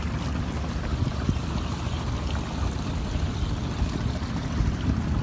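Steady rush of flowing canal water, with a low rumble beneath it.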